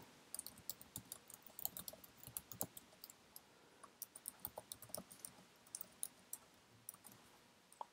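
Faint typing on a computer keyboard: quick, irregular keystrokes as an email address and password are entered, stopping about seven seconds in.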